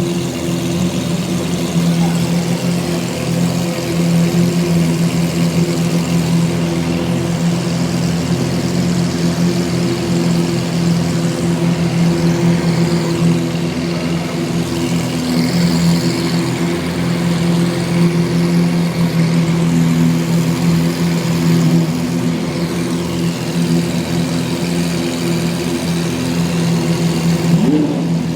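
Lamborghini Aventador's V12 engine idling steadily.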